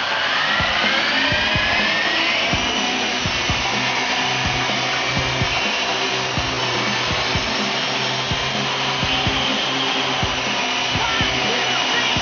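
Walkera CH-46 RC tandem-rotor electric helicopter, driven by four small 370-size electric motors, spooling up with a rising whine over the first two or three seconds as it lifts off. It then holds a steady motor whine and rotor buzz in hover.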